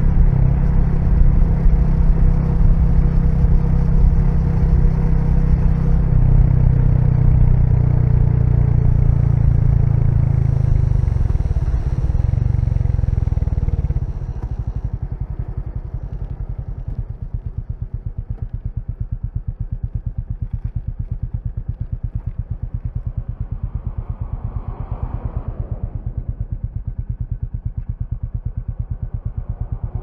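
Royal Enfield Meteor 350's single-cylinder engine under way, then slowing and settling to an even idle about halfway through, with a steady thump, thump, thump.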